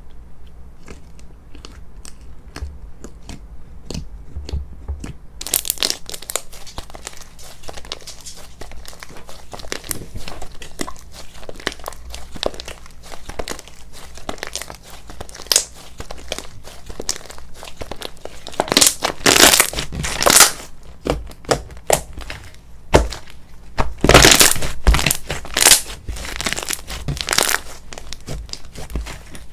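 Slime being squished and stretched by hand, making sticky crackles and pops. A few soft clicks at first, then dense crinkly crackling from about five seconds in, loudest in bursts in the second half.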